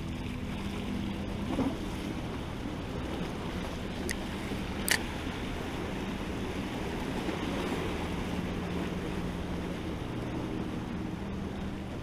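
Sea water washing against jetty rocks, with wind on the microphone, under a steady low hum. A single sharp click about five seconds in.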